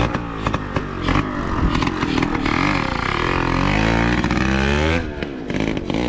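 Motorcycle engine running after being kick-started, uneven at first, then revved so that its pitch climbs and falls for a few seconds before easing off about five seconds in.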